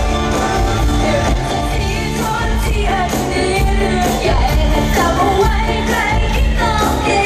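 Live Thai pop song: vocals sung over a full band, amplified through the concert PA.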